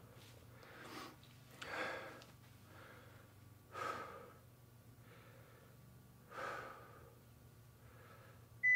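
A person breathing slowly and audibly, a breath every two seconds or so, while holding a stretch. Near the end a workout timer gives a short high electronic beep, the first of its countdown beeps.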